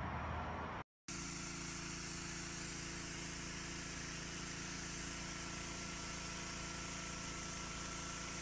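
Pressure washer running steadily: an even motor hum under the hiss of the fan spray. The sound cuts out briefly about a second in and then runs unchanged.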